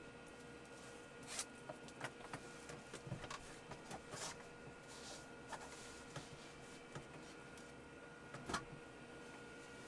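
Fleece jacket being taken off: quiet fabric rustling and brushing in a string of short scrapes and clicks, the loudest about eight and a half seconds in.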